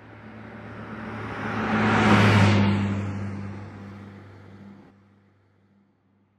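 Logo sound effect: a low humming whoosh that swells to a peak about two seconds in, then fades away.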